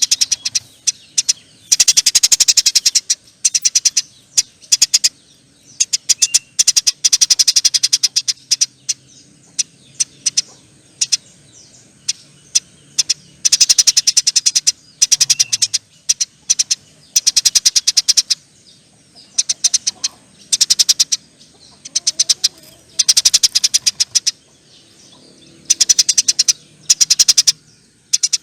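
Eurasian tree sparrow chattering in loud, rapid trills of sharp chips, each burst lasting one to two seconds with short pauses between: the long 'nyerecet' chatter of a bird in full song.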